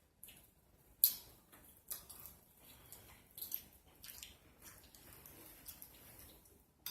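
Close-miked eating sounds: wet chewing and lip smacks with scattered sharp clicks, the loudest about a second in.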